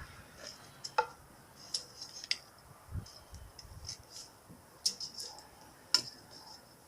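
Sparse light clicks and taps, about a handful over several seconds, with the sharpest near one second and six seconds in: small tools or parts being handled.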